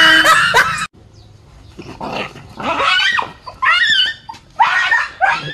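A dog attacking a stuffed toy tiger, growling and barking in a string of short bursts. A loud shrill cry in the first second cuts off abruptly.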